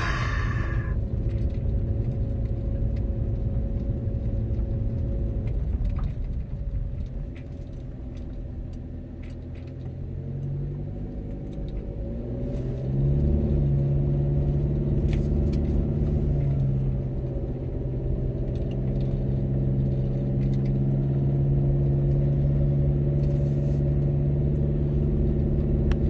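Car engine and road rumble heard from inside the cabin while driving slowly; the engine eases off for a few seconds near the middle, then its note rises and holds steady as the car pulls on again.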